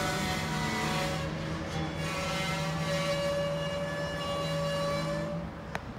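Steel wheels of slow-rolling gondola freight cars squealing against the rails in several shifting high tones over a low steady hum. The squeal dies away near the end, followed by one sharp click.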